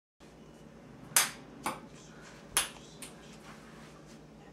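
Ping-pong ball bouncing on a hard surface: sharp clicks. The two loudest are about a second and a half apart, and each is followed about half a second later by a fainter bounce.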